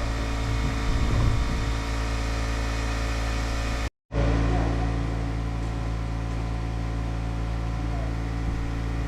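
An engine running steadily at a constant speed, with a brief total dropout about four seconds in.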